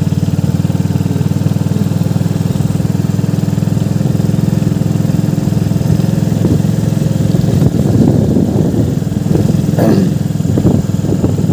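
Hero Glamour 125's single-cylinder four-stroke engine running steadily as the motorcycle rides along at low speed.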